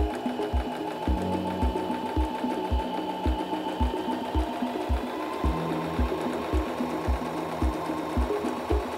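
SINGER M1500 sewing machine stitching a straight seam through fabric, its motor running steadily under a fast needle clatter. A steady low beat of background music runs underneath.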